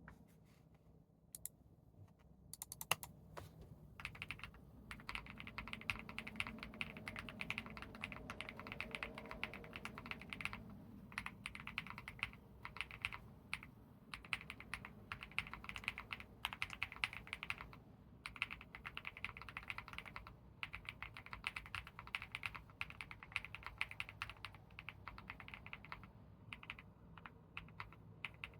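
Leobog HI75 mechanical keyboard with lubed Akko CS Silver Crystal linear switches and Infinikey Aether keycaps being typed on: a few single key presses, then from about four seconds in a fast, continuous run of keystrokes with short pauses.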